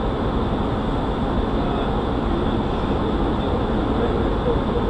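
Steady rushing noise on the flight deck of an Airbus A300-600 in descent, with a faint high steady tone under it.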